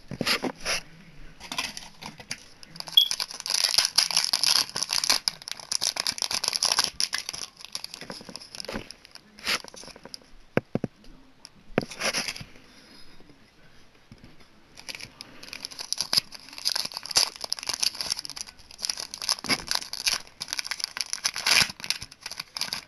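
Clear plastic wrapper crinkling and tearing as a can badge is unwrapped by hand. It comes in two long stretches, with a quieter lull in the middle.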